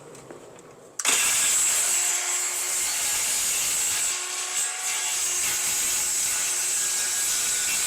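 A power saw starts abruptly about a second in and cuts steadily through flooring.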